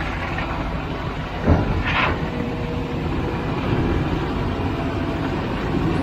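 Concrete pump truck's engine running steadily. A thump comes about a second and a half in, followed closely by a short rush of noise.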